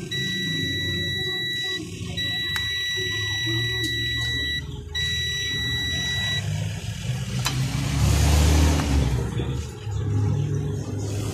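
Digital multimeter's continuity buzzer giving three long, steady high beeps as the probes touch pins on the TV's LED backlight driver board: it reads a short, which the technician takes for a shorted backlight driver IC. A low rumble runs underneath and swells loudest about eight seconds in.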